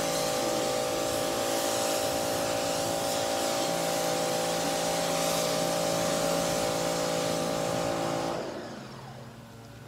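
Electric pressure washer running, its motor whining steadily under the hiss of the water spray hitting a car's paint. Motor and spray stop about eight seconds in.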